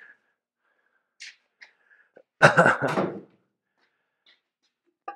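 Engine parts being handled on a bare engine block: a few light knocks, then a short loud clatter about two and a half seconds in that dies away within a second.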